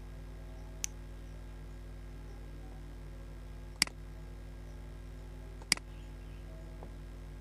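Computer mouse clicks: a faint one about a second in, then two sharper ones near four and six seconds, over a steady low electrical hum.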